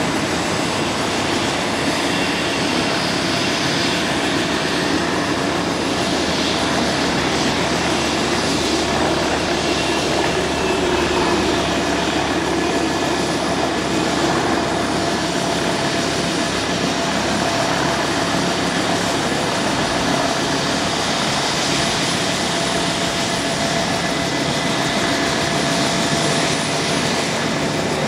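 Jet airliner engines running: a steady rumble and hiss with a faint high whine.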